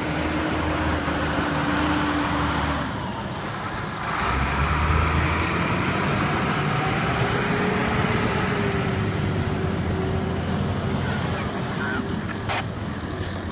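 Diesel engines of fire trucks running as they pull out, first a fire engine and then a water tanker truck driving off. The engine sound gets louder about four seconds in as the tanker gets under way.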